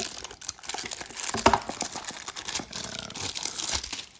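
Plastic shrink-wrap seal being torn and peeled off a product box, crinkling and crackling irregularly, stopping abruptly near the end.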